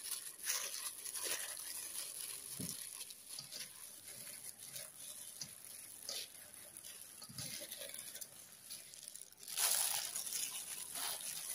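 Gloved hand squeezing and tossing damp flattened rice flakes in a stainless steel bowl. The flakes and the plastic glove make soft rustling and crinkling as clumps that soaked up coconut water are broken apart. It gets louder for a moment near the end.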